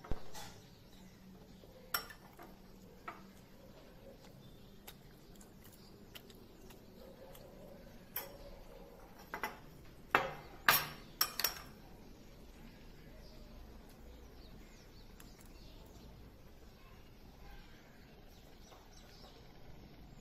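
Scattered clinks and knocks of a spoon and glass tumblers against a glass-topped dining table. There are a few near the start, and the loudest come in a quick cluster about ten to eleven and a half seconds in.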